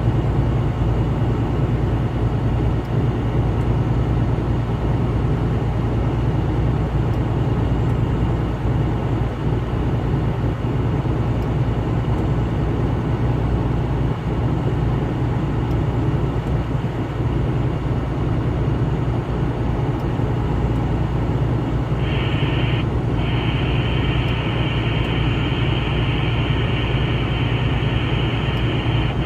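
Vehicle driving on the highway: a steady low engine and road rumble. About 22 s in, a steady high hissing tone joins it, breaks off briefly about a second later, and then carries on.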